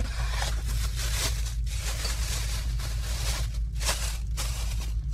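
Plastic bag crinkling and rustling as it is handled, with two sharper crackles near four seconds in, over a steady low hum.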